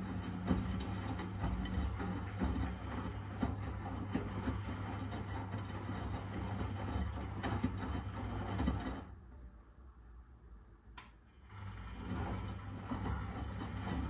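Miele W Classic washing machine running a wash, its drum motor giving a steady hum with mechanical whirring and rattling that the owner finds strange. About nine seconds in the motor stops for a couple of seconds, with a single click in the pause, then starts up again.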